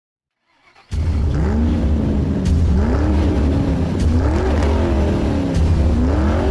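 Car engine revving over and over, its pitch climbing and dropping about every second and a half over a heavy low rumble, starting about a second in after silence, with a faint click at each repeat.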